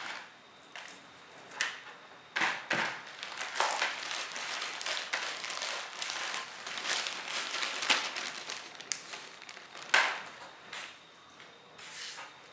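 Irregular clicking, tapping and light clinking of small hard objects being handled, thickest in the middle, with a sharper knock about ten seconds in.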